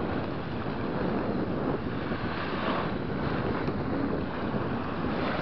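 Wind buffeting the microphone, with small waves washing onto the beach.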